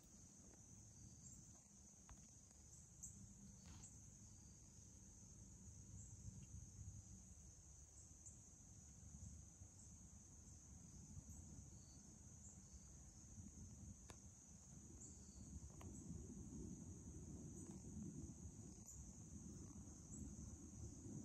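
Faint, steady insect chorus: a continuous high-pitched trill, under a low rumble that grows louder in the second half.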